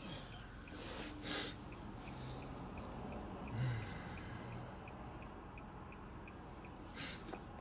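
A person's sharp breaths or sniffs close to the microphone, twice, with a brief low hum between them. Under them runs a faint, regular ticking, about three ticks a second.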